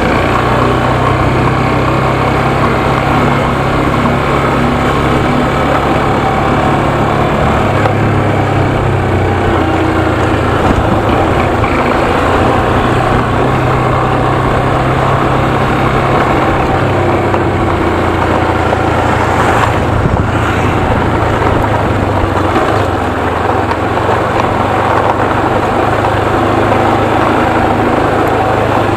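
Motorcycle engine running steadily while riding, its note stepping up and down a few times as the speed changes, under a constant rush of wind noise.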